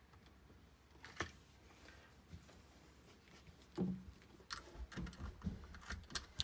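Scattered small clicks and taps of hands handling electrical wires and a plastic junction box with its terminal block, with a soft thump about two-thirds of the way through and a run of quicker clicks near the end.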